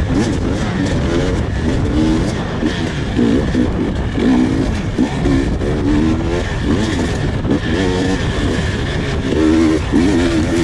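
Husqvarna TE300 two-stroke dirt bike engine running under constant throttle changes. Its revs keep rising and falling every second or so.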